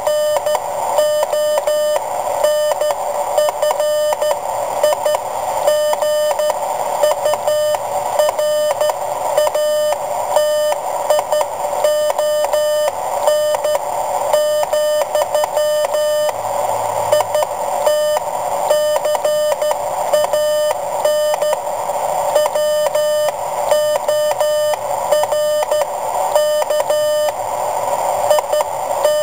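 Morse code sent on a WB9LPU GoBug semi-automatic (bug) key, heard as a keyed sidetone beep: one steady mid-pitched tone broken into quick runs of dots and longer dashes.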